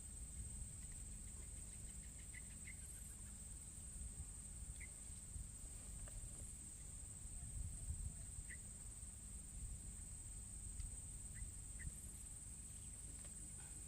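Quiet riverside ambience: a steady high-pitched insect drone over a low rumble, with a few short faint chirps scattered through.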